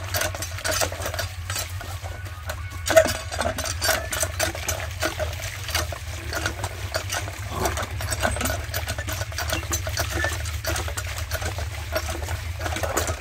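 Hand pump being worked by its lever: repeated creaking, clanking strokes of the handle while water gushes from the spout and splashes onto the ground, over a steady low rumble.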